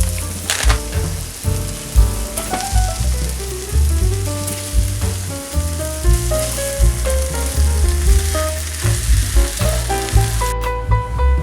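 Food sizzling in a frying pan, a steady hiss, under instrumental background music with a melody over a steady bass beat.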